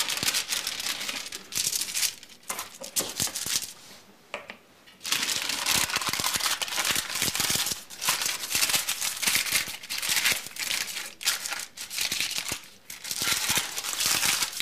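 Baking paper crinkling and rustling as soft herb butter is wrapped in it and rolled into a log, with a quieter pause about four seconds in.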